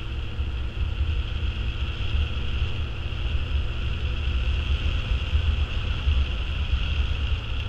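Riding noise from a Honda CBF600SA motorcycle cruising at steady speed: wind buffeting on the helmet-mounted camera's microphone, with the bike's inline-four engine running evenly underneath. The rumble flutters continuously with no change in engine speed.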